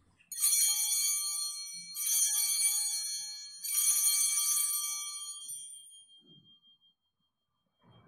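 Altar bells rung three times, each ring a bright shimmer of high tones that dies away, the last fading over about two seconds. The ringing marks the elevation of the consecrated host at Mass.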